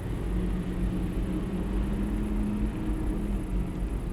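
Steady low rumble of an idling truck engine, with a faint steady hum over it.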